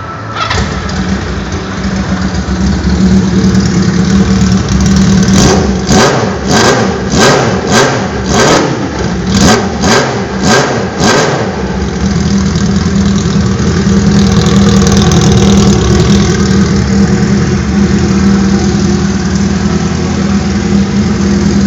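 A freshly serviced Honda CB400 Four's air-cooled inline-four engine starting and settling into idle. About five seconds in it is blipped with the throttle about ten times in quick succession, then it idles steadily again.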